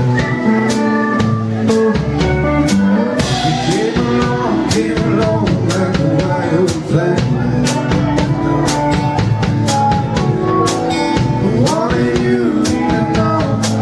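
Live band playing an instrumental passage, with guitars holding and sliding between notes over a drum kit keeping a steady beat of about two strokes a second.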